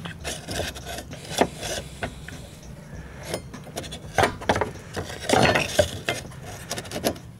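VW Golf 5 fuel-pump plastic locking ring being worked loose and lifted off the tank flange by hand: irregular scrapes, rubs and clacks of plastic, with the busiest stretch about five seconds in.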